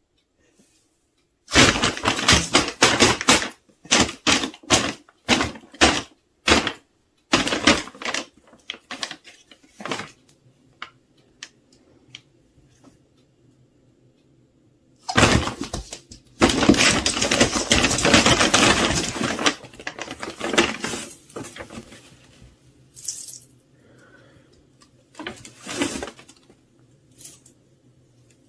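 Brown paper crinkling and rustling in loud bursts and short crackles as a cat pounces on it and scrabbles over it.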